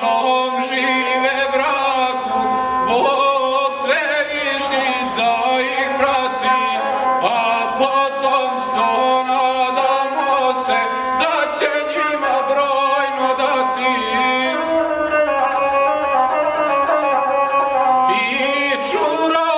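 A gusle, the single-string bowed folk fiddle, bowed continuously as a man sings over it in the guslar style.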